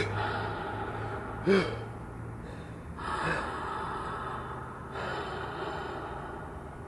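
A man breathing hard and gasping as he catches his breath, a heavy breath every second and a half or so, with a short voiced grunt about one and a half seconds in.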